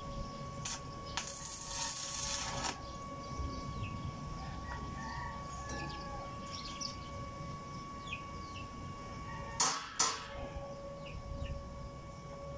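Stick welding on a steel gate frame with a small inverter welder: a crackling arc hiss about a second in lasting around a second and a half, and a shorter burst of it near the end, over a steady high whine.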